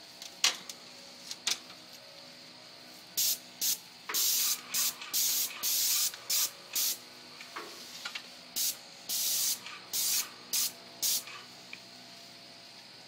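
Paint spray gun spraying in a series of short on-off bursts of hiss, about a dozen between roughly 3 and 11 seconds in, over a steady hum. A few sharp clicks come in the first two seconds.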